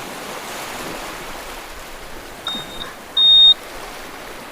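Two short high electronic beeps, the second louder, over a steady rushing wash of beach surf.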